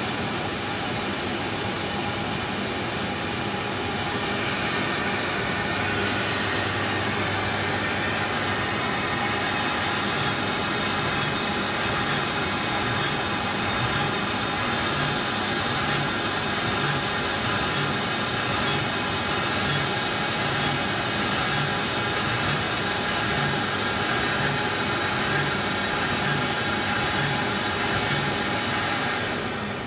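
LPKF Protomat S62 PCB milling machine drilling holes with a 0.6 mm drill: a steady machine noise, with a pulse repeating about once a second from around ten seconds in as it works from hole to hole.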